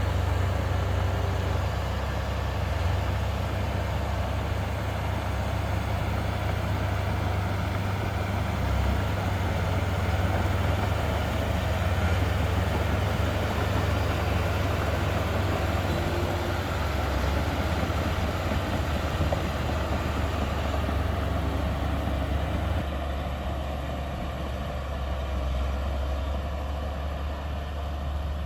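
Heavy diesel construction machinery running steadily, with a deep, even engine drone. Near the end the sound turns duller.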